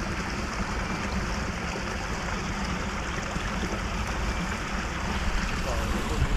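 Steady rush of water flowing out of a drainage pipe outlet into a canal.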